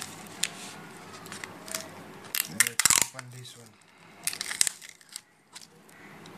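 Cardboard phone box and plastic accessory packaging handled on a table: crinkling plastic with sharp clicks and taps, loudest a little before halfway and again just past the middle.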